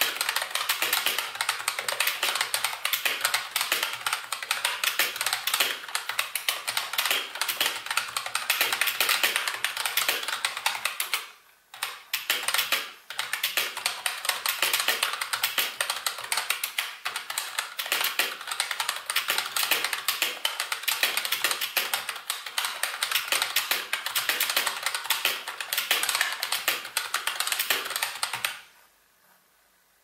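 Fast, continuous typing on a Cooler Master MasterKeys Lite L Combo RGB keyboard with mem-chanical (hybrid membrane) switches: a dense run of keystrokes with a brief pause about eleven seconds in. The typing stops shortly before the end.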